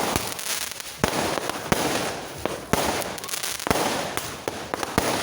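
Fireworks going off: a string of sharp bangs about once a second over a dense, continuous crackling.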